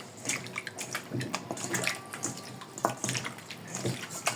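Hands turning and squishing raw chicken pieces in vinegar and lemon juice in a bowl: irregular wet sloshes and squelches.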